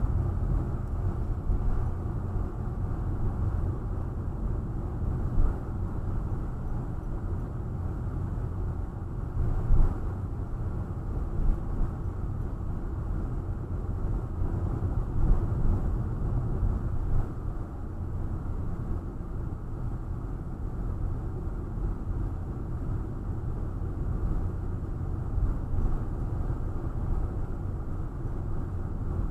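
Car driving on a village road, heard from inside the cabin: a steady low engine and tyre rumble, with a few brief knocks along the way.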